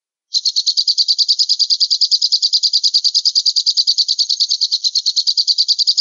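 Falcon calls: a fast, even chatter of harsh, high notes, about twelve a second, that begins abruptly just after the start and keeps the same pace without a break.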